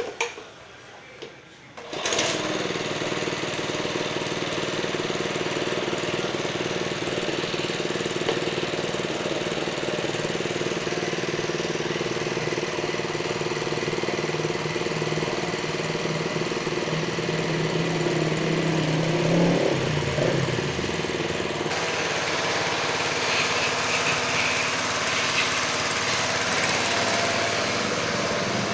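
Lakoni Daytona 120 G pressure washer switching on about two seconds in and then running steadily, its motor and pump with a rapid pulsing note.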